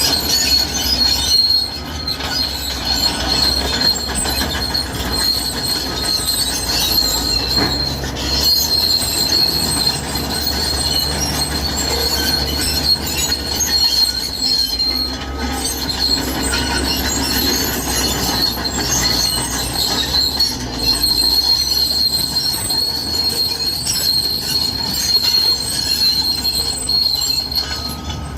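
Cat D6R crawler bulldozer at work, its diesel engine running under a continuous high squeal from its steel tracks.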